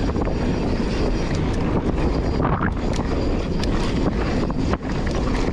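Wind buffeting a GoPro's microphone as a mountain bike runs fast down a dry dirt trail, with steady tyre rumble and many sharp rattles and clacks from the bike over the bumps.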